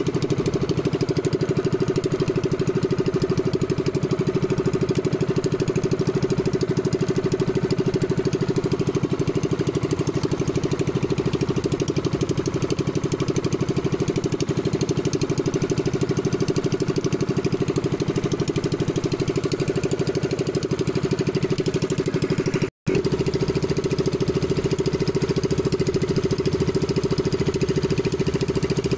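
Engine of a small outrigger fishing boat running steadily at a constant speed, with a rapid even pulse. The sound drops out for an instant about three quarters of the way through.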